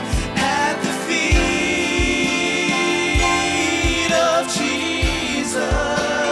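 Live worship band playing a slow worship song: a kick drum keeping a steady beat under cymbals and sustained keyboard and guitar chords, with voices singing.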